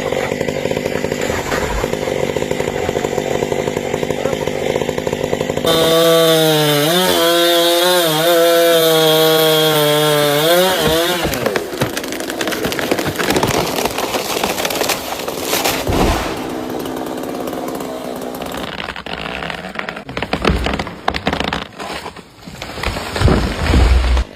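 Two-stroke chainsaw running and cutting into wood, its engine pitch wavering and dipping under load for several seconds. Noisy cutting follows, with a few knocks near the end.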